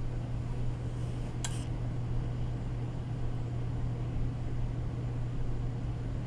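A steady low machine hum, with one short click about a second and a half in.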